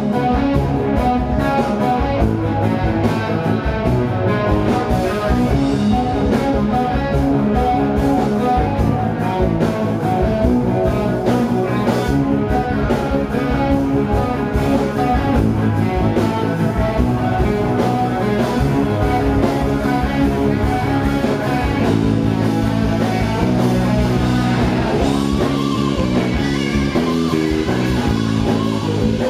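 Live blues-rock band music, led by a Les Paul-style electric guitar with humbucking pickups, over a drum beat.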